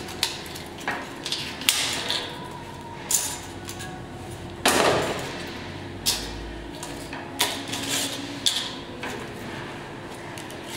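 Mobile phones being pried apart by hand with a screwdriver: irregular plastic and metal clicks, snaps and small knocks as casings and parts are levered off and set down on a metal workbench. There is one louder clatter about five seconds in, over a steady background hum.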